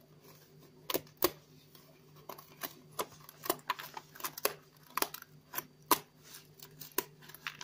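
Die-cut card pieces of a 3D puzzle kit being pressed out of their sheet by hand: an irregular run of sharp clicks and snaps as the card tabs break free.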